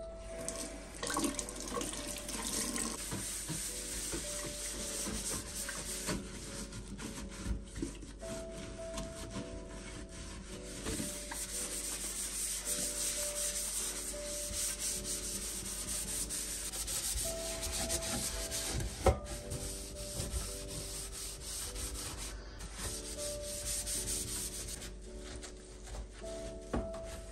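A sponge scrubbing a stainless steel sink: a continuous scratchy rubbing that comes and goes with the strokes. Quiet background music plays under it, and there is one sharp knock about two-thirds of the way through.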